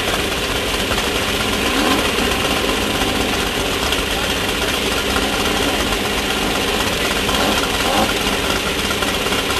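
Class 1600 off-road race car's engine running steadily, with no change in pace.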